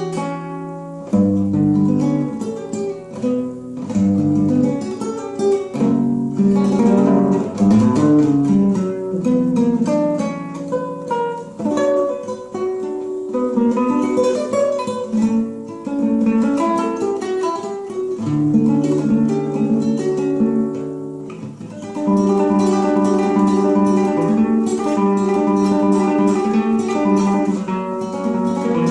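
Classical guitar played solo and improvised: a picked melody over held bass notes. In the last quarter it turns to denser repeated chords.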